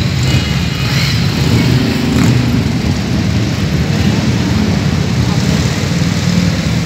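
Several motorcycle engines idling and running at low speed together: a steady low engine rumble.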